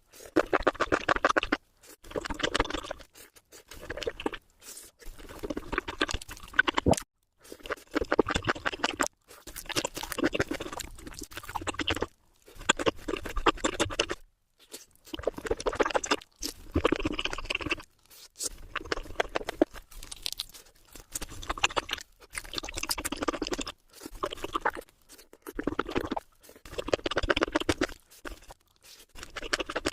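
Close-miked crunching and chewing of crisp food, sped up fourfold, so the bites run together as a fast crackle. It comes in bursts of a second or two, with short, abrupt silent gaps between them.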